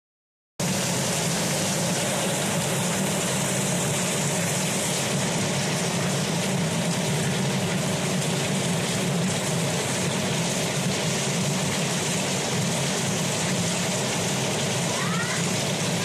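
A steady stream of water gushing from a plastic pipe outlet and splashing down onto the ground below, a constant rushing noise that cuts in about half a second in.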